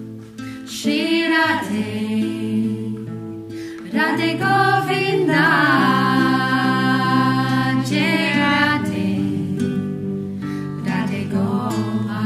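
Devotional song: voices singing over strummed acoustic guitar.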